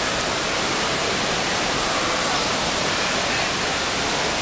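Steady wash of ambient noise in an indoor swimming pool hall, with spectators and water blending into one unbroken hiss and faint voices in it.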